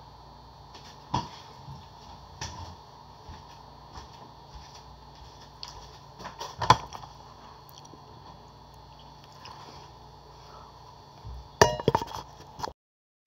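A few scattered knocks and clatters over a steady room hum, then a burst of bumping and rubbing as a handheld phone camera is picked up and moved, cutting off suddenly near the end.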